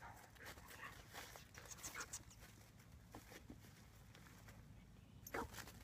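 Near silence: faint footsteps and rustling of people and dogs moving on leaf-strewn grass, with one short, sharper sound near the end.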